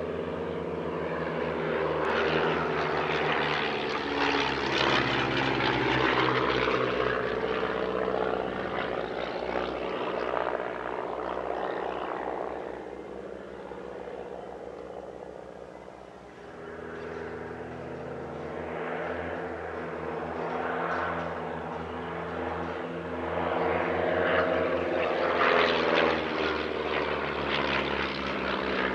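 Piston-engined propeller aircraft flying past. The engine note swells and fades twice, loudest about a quarter of the way in and again near the end, with the pitch shifting as the aircraft approach and pass.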